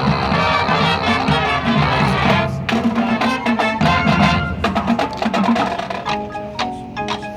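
High school marching band playing its show music, the full band of brass and drums. About six seconds in it thins out to mallet percussion: separate struck, ringing notes.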